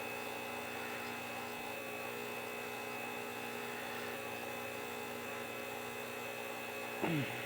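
Steady electrical hum with several fixed tones, like mains hum from bench equipment. Near the end a short falling murmur from a man's voice.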